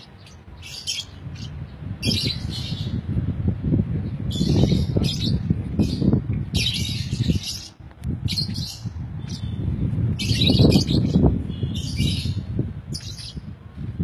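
Lovebirds calling in short, shrill chirping bursts, about ten of them, over a loud low rumbling noise that swells twice.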